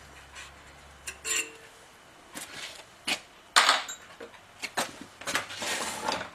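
Light metallic clicks and clinks as a steel valve-seat cutter pilot is handled and pushed into a valve guide in a Willys L-head engine block. The clinks are irregular, with a short scraping rattle near the end.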